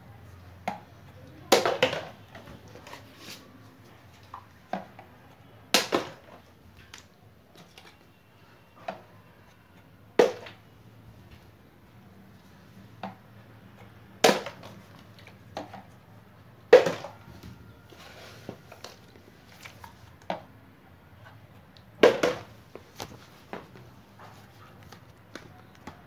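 Plastic water bottle being flipped over and over, landing with six sharp knocks on the hard floor and cube mat, roughly every four seconds, with fainter clicks and taps in between.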